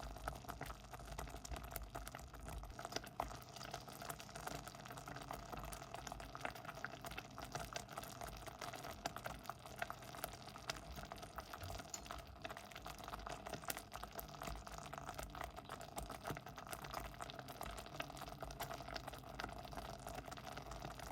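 Porridge boiling in a pot: a steady stream of small, irregular bubbling pops.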